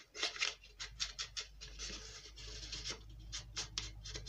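Foam ink blending tool rubbed over the folded edges of a paper envelope in quick, scratchy strokes. A low steady hum sits underneath from about a second in.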